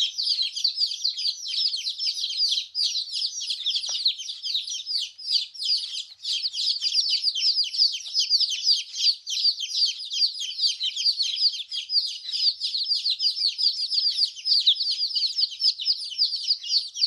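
A brood of newly hatched chicks peeping constantly, many high-pitched calls overlapping, each a quick falling note.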